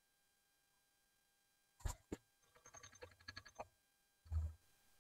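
Faint, sped-up clicks and knocks from the milling machine being worked while the vise tram is checked: a pair of sharp clicks about two seconds in, a quick run of light ringing ticks, then a duller knock near the end.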